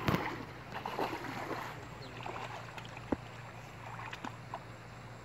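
Splashing and sloshing of shallow water as people wade through it, with a loud splash right at the start and smaller, fading splashes after.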